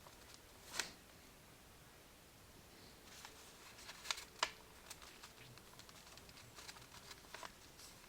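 A few light clicks and taps against quiet room tone: one sharp click about a second in, two close together a little after four seconds, and fainter ticks near the end.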